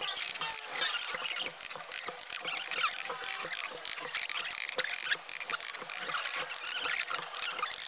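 Steel trowel scraping mortar and tapping hollow clay bricks into place on a brick wall: a rapid, irregular clatter of clicks and scrapes.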